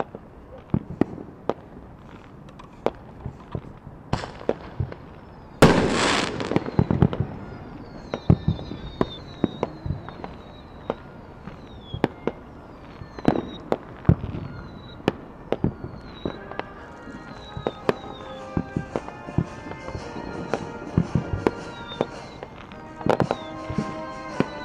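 Fireworks display: aerial shells bursting in sharp bangs scattered through, with one loud, longer crackling burst about six seconds in and a run of short falling whistles after it. Music comes in under the bangs in the second half.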